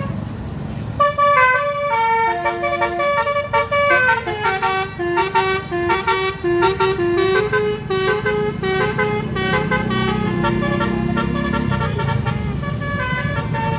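A bus's telolet horn playing a quick tune of stepped notes, starting about a second in and running almost to the end, over the low rumble of the bus's running engine.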